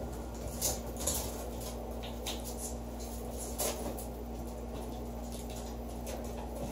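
A ferret playing with a small plastic ball on a hardwood floor: a few scattered light taps and scuffs of its claws and the ball on the boards, over a steady low room hum.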